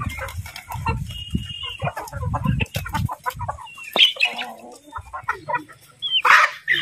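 A flock of Aseel game chickens clucking and calling as they crowd and jump up to be hand-fed, with wing flaps and quick clicks through it. A loud shrill squawk comes about six seconds in.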